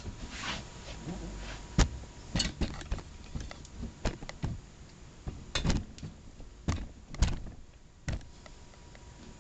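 A series of separate sharp knocks and clunks, about eight or nine spread unevenly, as the parts of a disassembled cast-iron bench vise and tools are handled and set down on a workbench.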